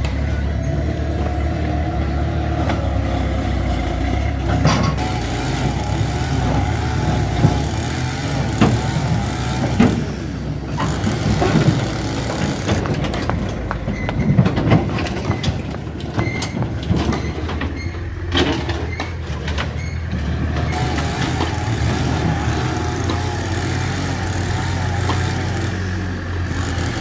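Mitsubishi BD2F bulldozer's diesel engine running steadily under work. Scattered clanks and knocks from the tracks and blade come through the middle stretch.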